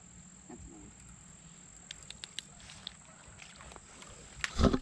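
Crickets chirping steadily, with a few faint clicks about two seconds in and a loud splashing, rustling burst near the end as the hooked fish is dragged up through the water's edge into the grass.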